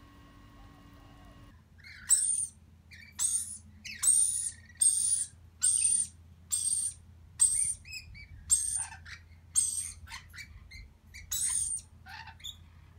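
Rainbow lorikeets calling: a run of about a dozen short, harsh, high-pitched screeches, roughly one a second, starting about a second and a half in.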